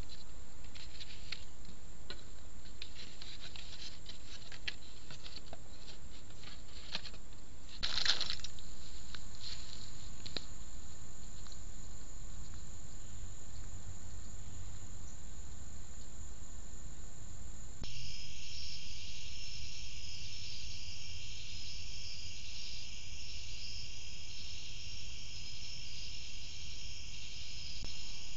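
Scattered light clicks and rustling, with a sharp knock about eight seconds in. From about eighteen seconds on, a steady pulsing chorus of night insects chirping.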